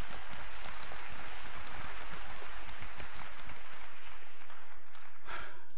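Audience applauding, a dense patter of many hands clapping that thins out and stops shortly before the end.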